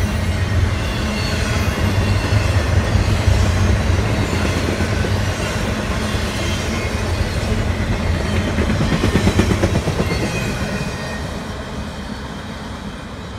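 Double-stack intermodal freight cars rolling past: a steady rumble and clatter of steel wheels on rail, fading from about ten seconds in as the end of the train moves away.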